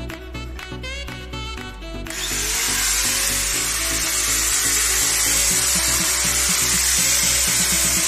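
An angle grinder starts about two seconds in, a brief rising whine, then runs on with a harsh, steady hiss, over background music.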